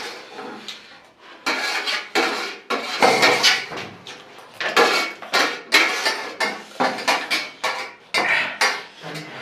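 Spoons scraping and clinking against plates in quick, irregular strokes, one or two a second, as chatpate is eaten fast.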